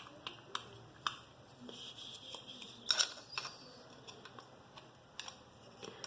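Small clicks and light knocks of a speaker wall-mount bracket and its little screws being handled and fitted together, with one louder click about three seconds in.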